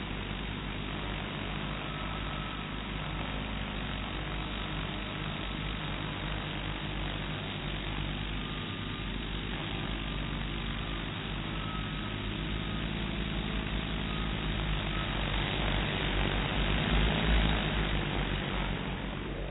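DJI Phantom 2 quadcopter hovering close by, its four motors and propellers giving a steady buzzing hum; the sound grows louder near the end.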